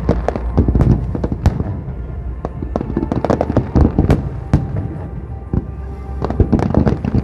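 Fireworks display: a rapid, continuous string of sharp bangs and crackles from bursting aerial shells, several per second, over a low rumble.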